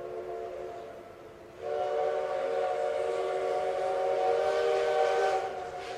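Steam whistle of the C10-class steam locomotive C10 8, a chord of several steady tones, sounding two blasts: a short one, then a longer one of about four seconds.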